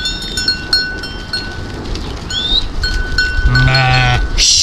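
Small animal bells clinking again and again as livestock move about, with one bleat about three and a half seconds in. A brief hiss near the end.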